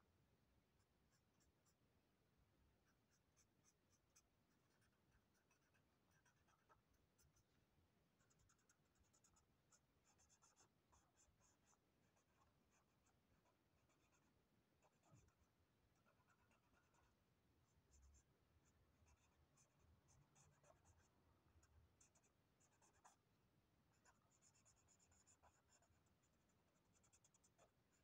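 Faint scratching of a marker pen on paper in many short, irregular strokes.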